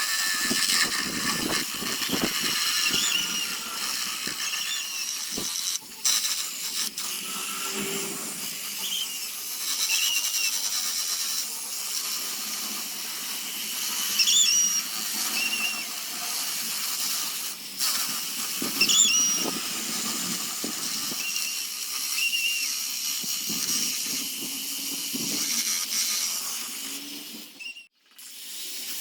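A power tool working wood: a steady hiss with short high squeals every few seconds, and a brief cut-out near the end.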